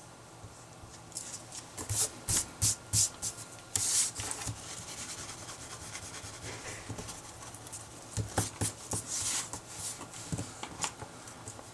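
Handwriting on paper: quick scratchy strokes in short runs, with a longer scratching stroke about four seconds in and another run of strokes near the end.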